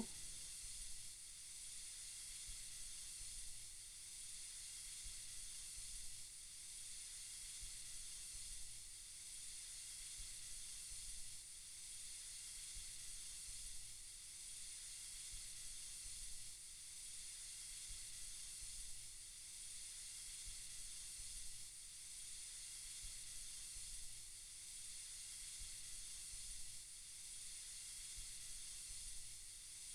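Soft, steady high hiss of a white-noise track for lulling a baby to sleep, swelling slightly every few seconds.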